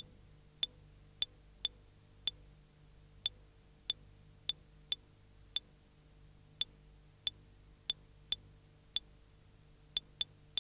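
A series of sharp, high, very short ticks, one or two a second at uneven spacing, over a faint steady hum.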